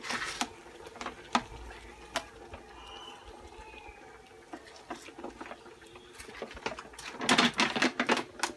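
Scattered sharp taps and knocks, with a quick run of them about seven seconds in.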